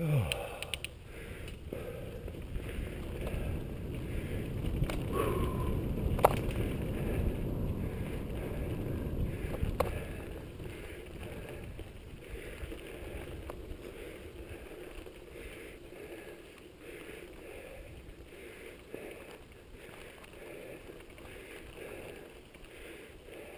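Mountain bike riding along a dirt singletrack: a low, steady rumble of tyres and trail noise, louder over the first ten seconds and then easing off, with a couple of sharp clicks.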